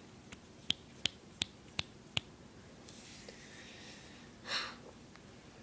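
About six finger snaps, roughly three a second, calling a pet gerbil over; then a short puff of breath about four and a half seconds in.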